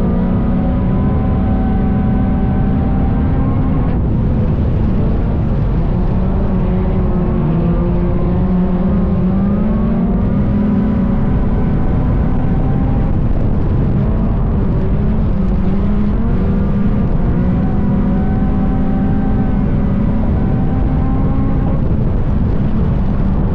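Chevy Cobalt dirt-track race car's four-cylinder engine running hard at racing speed, its pitch rising and falling every few seconds as the throttle comes off and goes back on around the track.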